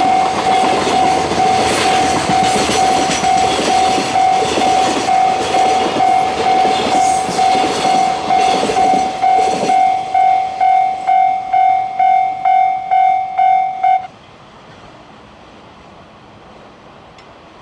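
Level-crossing warning bell ringing in steady one-tone pulses, about two a second, while a train runs over the crossing with clattering wheels. The train noise dies away about halfway through, and the bell cuts off suddenly near the end, leaving faint background noise.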